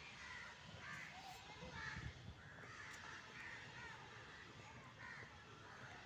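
Crows cawing faintly, a harsh call repeated about once a second.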